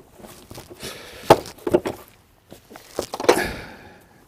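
A few knocks and clicks of oil filter parts being handled and fitted into the plastic filter housing in the engine bay, with a short scraping rustle about three seconds in.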